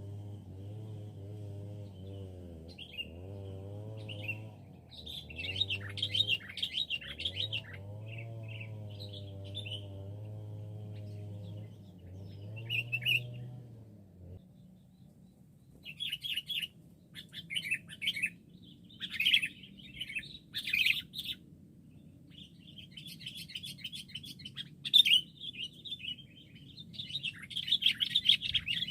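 Sooty-headed bulbuls chirping in quick phrases that come in spells with short gaps between them. A low wavering hum runs under the first half and cuts off suddenly about halfway through.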